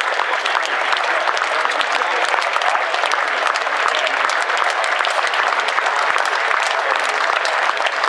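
A large cricket-ground crowd applauding steadily in a standing ovation, many hands clapping at once without a break.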